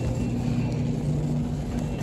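Steady low hum with a low rumble beneath, the background drone of a supermarket freezer aisle.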